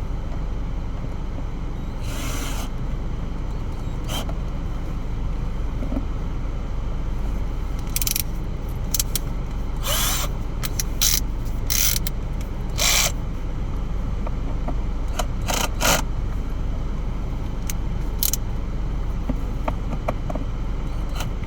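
Scattered sharp clicks and taps of a small hand tool on a plastic console latch cover as a small screw is driven home, over a steady low rumble.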